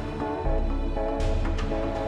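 Background music with a steady beat, bass and bright cymbal strokes.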